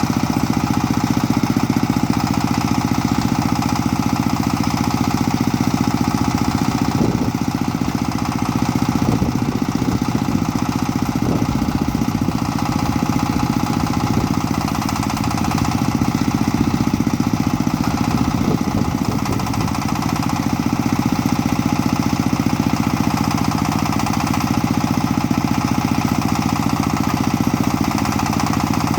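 Engine of a small Tomgo mini backhoe loader running steadily under work, with a fast, even chugging beat. A few short knocks come in around the middle.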